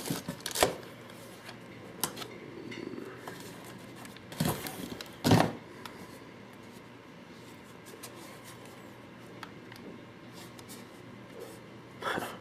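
Handling noises from a paintball hopper and its foam packaging being taken out and checked: a few short scrapes and knocks, the loudest around four and a half and five and a half seconds in and another near the end, with faint clicks between.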